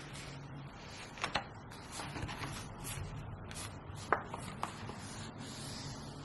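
Hands rubbing and scraping paper or card while making a notebook, with a few light taps: two about a second in and two more around four seconds in.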